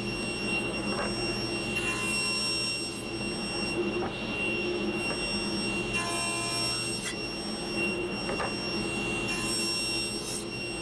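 Table saw running steadily with a high whine over a low hum.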